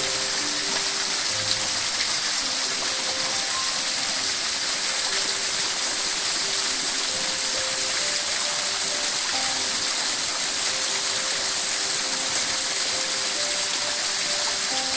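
Small waterfall spilling and splashing onto rock ledges: a steady rushing hiss. Soft background music notes run faintly underneath.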